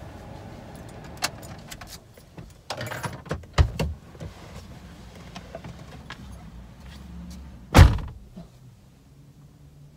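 Clicks and rustling inside a car as someone climbs out, with a thump about three and a half seconds in and a car door slamming shut about eight seconds in, the loudest sound.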